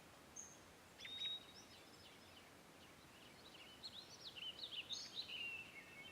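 Birds calling faintly over a steady outdoor hiss: a clear whistled note about a second in, then a busier run of quick chirps and short whistles in the second half.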